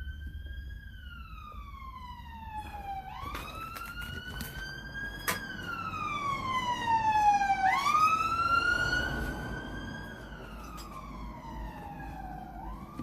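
Emergency vehicle siren in a slow wail, each cycle rising quickly and then falling slowly over about four seconds. It grows louder toward the middle and then fades as it passes. There is one sharp click about five seconds in.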